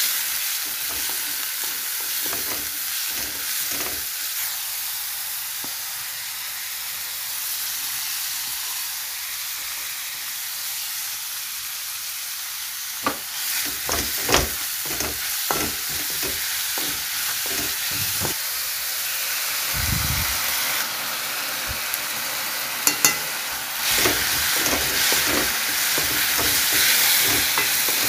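Onion, grated carrot and spring onions sizzling in hot oil in a metal wok on high flame, stirred with a wooden spatula. The spatula knocks and scrapes against the pan over the steady sizzle, in bursts of strokes that come thickest in the second half.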